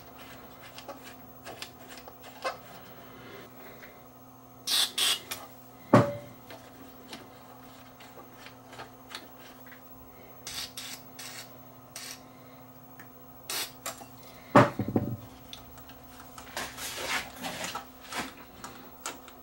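Hands and tools working on a CRT monitor's chassis while cleaning its controls: scattered clicks and rubbing, two short spurts of spray contact cleaner about five seconds in, and two sharp knocks about six and fourteen and a half seconds in.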